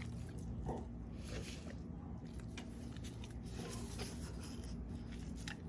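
Dogs chewing and crunching on whole chickens, with scattered short cracks as the bones give way, over a steady low hum.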